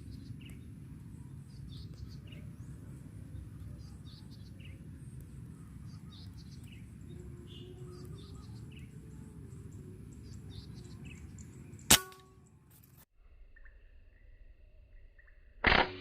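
Outdoor ambience of a low steady rumble with scattered short bird chirps, then a single sharp crack of a hunting air rifle shot about twelve seconds in. After it the sound cuts abruptly to a quieter background, and near the end comes a second loud short hit with a ringing tone trailing after it.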